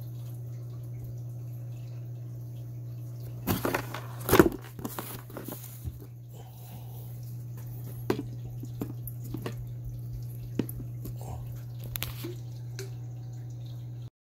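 Cardboard motherboard box being handled: a burst of rustling and knocking a few seconds in, then a few light taps, over a steady low hum.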